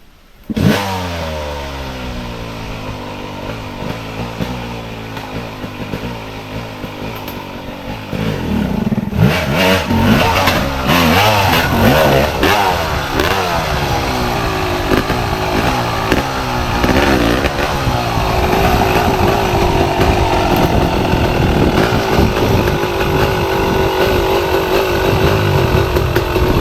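Dirt-bike engine revving hard over and over, its pitch rising and falling with each burst of throttle as it works up a rocky climb. It gets louder about eight seconds in and holds a steadier high rev near the end.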